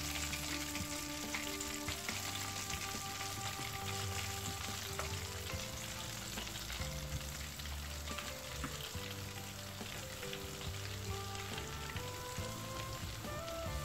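Flour-coated chicken pieces deep-frying in hot vegetable oil in a pan: a steady sizzle and crackle.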